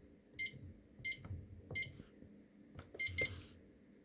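Electronic safe keypad beeping once for each button press as a code is keyed in, with a soft click from each press. Four evenly spaced beeps are followed about three seconds in by two quick beeps together.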